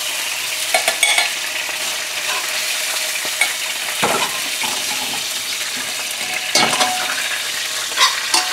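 Oil and chicken pieces sizzling steadily in a hot frying pan over a gas flame, with a slotted metal spoon scraping the pan and clinking against it and a stainless steel bowl a few times as the chicken is lifted out.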